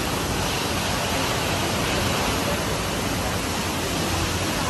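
Steady rushing of water, an even hiss with a low hum underneath and no change in level.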